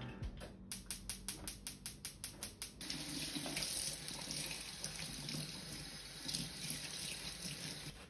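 A kitchen knife chopping on a cutting board, about five or six quick strokes a second, for the first two and a half seconds. Then a tap runs steadily into the sink while greens are rinsed under it, stopping near the end.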